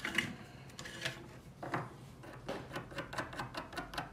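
Abrasive scraped back and forth over a soldering iron's tip to clean it: a series of short rasping strokes, sparse at first and then about four a second in the second half.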